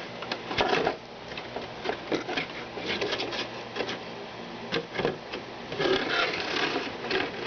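Irregular plastic clicks, knocks and rubbing from a toy remote-control car's plastic body shell being handled and fitted onto the chassis.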